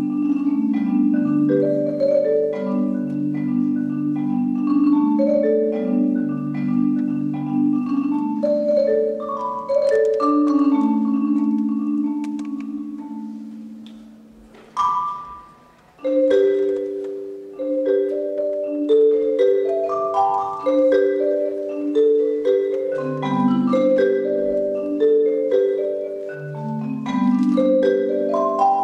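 Solo concert marimba played with mallets: long held chords in the low register, fading away about fourteen seconds in, a brief near pause, then the playing picks up again around sixteen seconds with chords a register higher.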